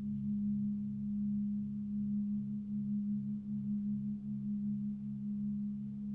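Sustained low ringing drone of a sound-relaxation track: one steady tone with a second, lower tone beneath it that wavers in an even, slow pulse.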